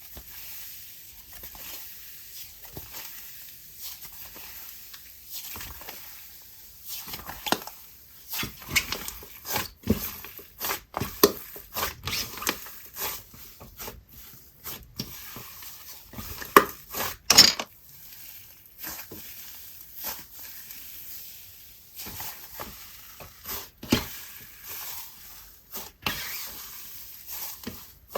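Hands squeezing and stretching an icy, wet-textured slime mixed with clear bingsu beads, making irregular crackling sizzles, clicks and squishes. The sounds are faint for the first several seconds, then come thick and sharp from about seven seconds in.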